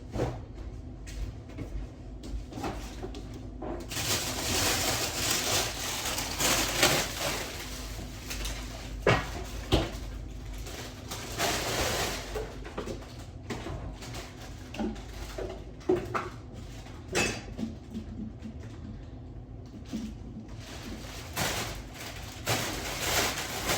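Kitchen work sounds: scattered knocks and clatter of dishes, utensils and cupboards, with a stretch of steady rushing noise through the first half.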